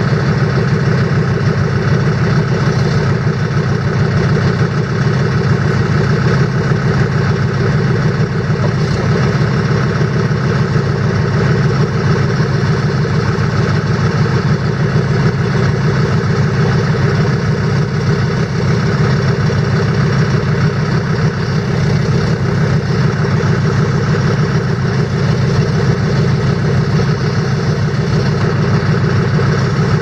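John Deere 310G backhoe's PowerTech 4.5-litre diesel engine running at a steady, unchanging speed while the backhoe boom and bucket are worked.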